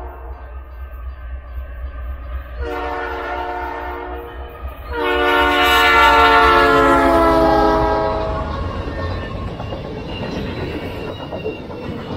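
Canadian Pacific freight locomotive's air horn sounding long blasts as the train approaches: one ends just after the start, a second runs from about three seconds in, and a third, the loudest, starts about five seconds in and drops in pitch as the locomotive passes. After that comes the rumble of the diesel engines and the clacking of the double-stack container cars' wheels over the rail joints.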